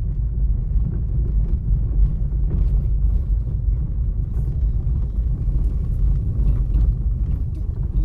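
Car driving slowly over a gravel dirt road, heard from inside the cabin: a steady low rumble of engine and tyres, with faint scattered ticks of gravel.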